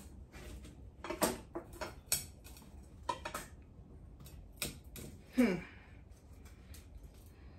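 Gardening shears cutting through a bamboo stake: a string of sharp clicks, snaps and crunches as the blades bite, with one short falling squeak about five seconds in.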